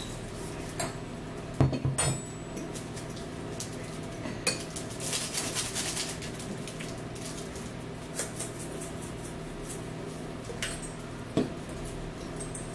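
Metal forks clinking and scraping against ceramic bowls during a meal, with a few sharper clinks and knocks of tableware being handled, loudest about two seconds in. A steady low hum runs underneath.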